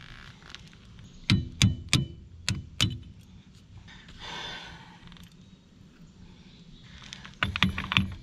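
Sharp metallic clinks of hand tools on the golf cart's axle hub while the cotter pin and axle nut are taken off: five in quick succession a little over a second in, and another cluster near the end.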